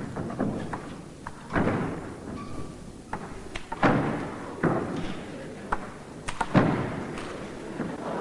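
Table tennis ball knocked back and forth in a rally: sharp knocks of ball on bat and table at uneven intervals, some of them echoing.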